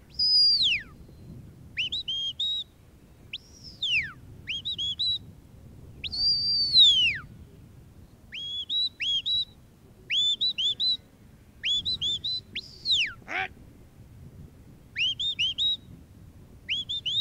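Shepherd's whistle blown by a sheepdog handler, giving commands to a working border collie: short rising-and-falling notes, mostly in quick groups of two to four, with a few longer notes that slide down in pitch.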